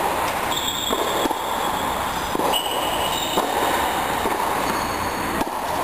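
Tennis shoes squeaking on the indoor court surface during a rally: several high-pitched squeals, each about half a second long, with a few faint ball strikes, over a steady background hum.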